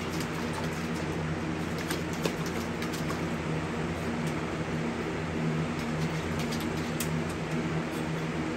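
A puppy pawing and splashing water in a metal bowl, making scattered small splashes and clicks over a steady low hum.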